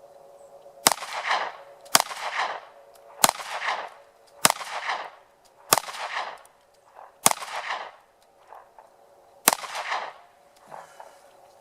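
Seven shots from a Ruger LC9s Pro 9mm pistol fired offhand, roughly a second apart with a longer pause before the last. Each shot is followed by a short echo. Seven rounds is a full magazine for this pistol.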